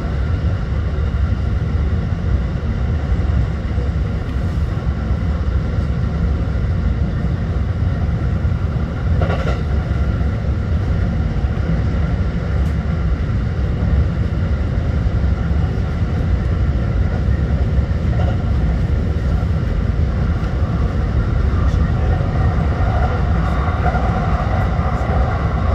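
Kintetsu electric train running at speed, heard from just behind the cab: a steady rumble of wheels on rail with a few steady humming tones above it. There is one short sharp knock about nine seconds in, and a higher hum grows stronger near the end.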